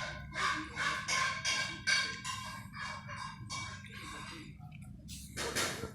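A young child's voice singing a tune in short pitched phrases for about four seconds, followed by a brief burst of noise near the end.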